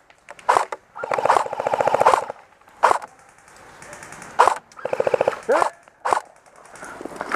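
Airsoft electric guns firing: a rapid full-auto burst of about a second, then scattered single cracks and a second shorter burst.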